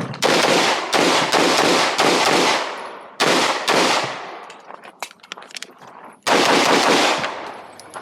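9mm Glock 19 Gen 5 pistol fired in fast strings of shots during a competition stage run. After about four and a half seconds the shooting breaks off for nearly two seconds, then another fast string comes near the end.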